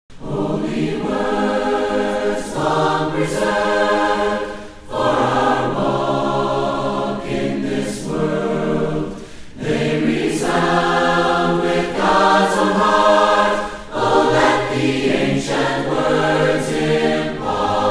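A choir singing a hymn in held chords, in phrases of about two to three seconds with short breaks between them.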